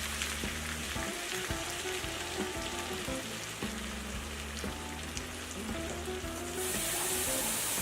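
Diced potatoes and sausage sizzling as they fry in a pan, a steady hiss that turns louder and brighter about two-thirds of the way through.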